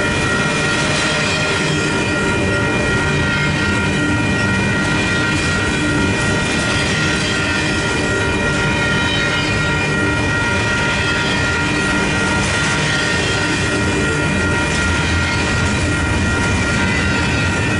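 Double-stack intermodal freight cars rolling past, a loud steady rumble of steel wheels on the rails with a steady high-pitched ringing over it.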